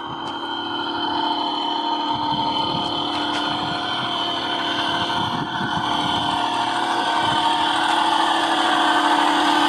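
Radio-controlled model trucks driving, their motors running with a steady hum that grows louder near the end.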